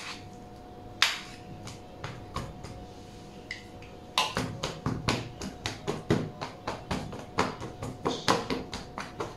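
Metal ladle and spoon clicking and knocking against a plastic container and the bowl as sticky chocolate biscuit mixture is scooped in and pressed down. There are a few scattered knocks at first, then quick tapping about three a second from about four seconds in.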